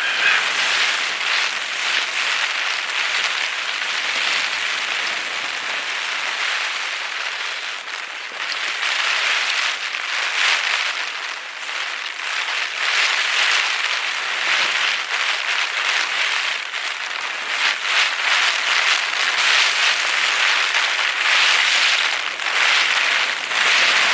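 Heavy rain pattering densely and without pause, swelling and easing in waves.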